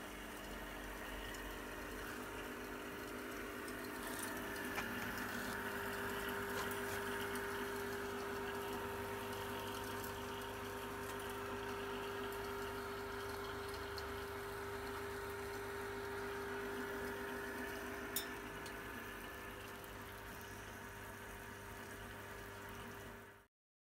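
Brewing pump running steadily with a constant hum and the rush of liquid, circulating wort through the hoses to whirlpool and cool it in the kettle. It cuts off suddenly near the end.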